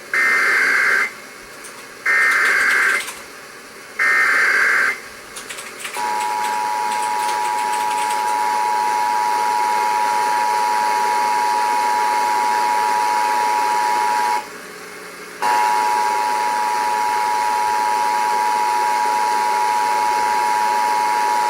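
Emergency Alert System test received off the air: three one-second squawks of SAME header data, then the steady two-tone EAS attention signal, which drops out for about a second partway through and comes back. Light radio hiss sits underneath.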